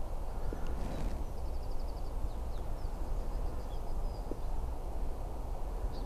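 Wind buffeting a microphone muffled under clothing, a steady low rumble, with faint small songbirds calling above it. There is a quick trill of about eight even notes around a second and a half in, then a few scattered chirps.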